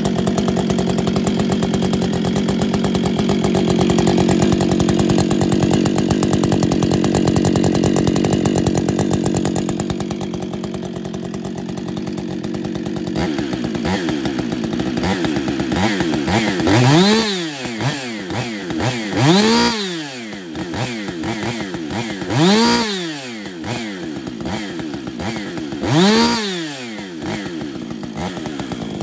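Husqvarna 560XP two-stroke chainsaw with a modified muffler running steadily, then settling to a lower idle about 13 seconds in and being revved up sharply and let fall back four times.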